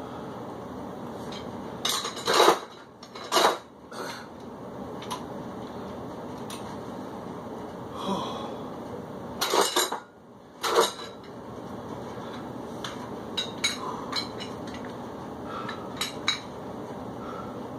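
Metal clanks and clinks of dumbbells being handled, set down and picked up: a few loud clanks in the first half, then lighter clicks, over a steady hiss.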